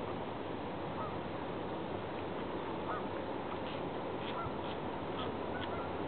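Several short bird calls, clustered in the second half, over a steady background noise.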